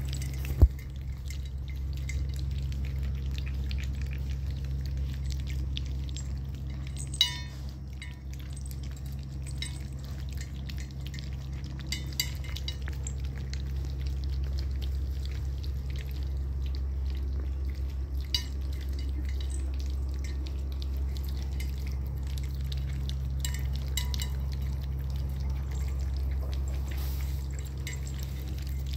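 A litter of month-old puppies lapping and slurping soft wet mash from a metal bowl: a steady patter of small wet clicks over a steady low hum, broken by a few sharp knocks, the loudest just under a second in.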